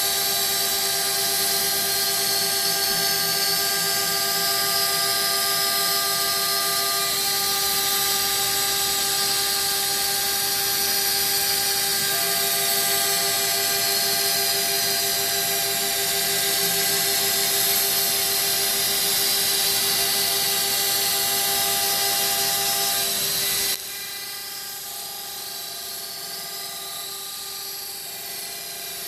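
CNC router spindle running and cutting a rabbet in MDF, with the shop vacuum of the hold-down fixture running too: a steady whine over a loud hiss. About 24 seconds in the level drops suddenly while the steady whine carries on.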